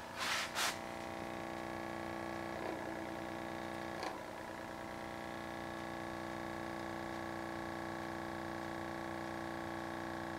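Homemade 'strange engine' running: its balloon diaphragm with magnets on top oscillates up and down, giving a steady buzzing drone made of several pitches held level. There is a brief rustle at the start and a couple of light clicks about 3 and 4 seconds in.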